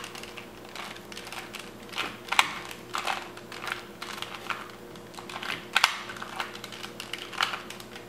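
Plastic layers of a 2x2 mini Rubik's Cube turned quickly by hand, a run of irregular clicks and clacks, a few of them sharper, as the last algorithm of the solve is worked through.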